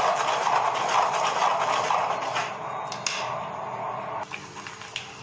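A metal ladle stirs and scrapes a thick wheat halwa mixture around an aluminium kadai, with a light clink about three seconds in. The stirring stops a little after four seconds in.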